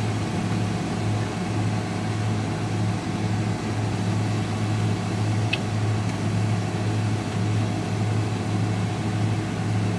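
Steady low mechanical hum inside a semi-truck's sleeper cab, with a faint tick about halfway through.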